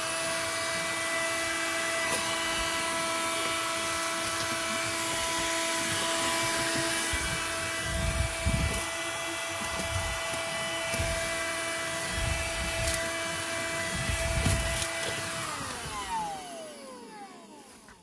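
Bullsone Extreme Power corded car vacuum cleaner, powered from the car's socket, running steadily with a high motor whine while it sucks up sand and debris, with irregular low bumps in the middle. Near the end the motor winds down with a falling whine.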